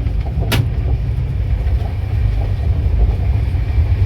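Steady low rumble of a moving passenger train heard from inside a Rajdhani Express coach, with a single sharp click about half a second in.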